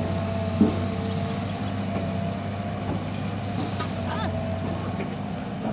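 Hitachi EX200-2 excavator's diesel engine running steadily at work, a constant hum with a steady whine over it. A short thump about half a second in.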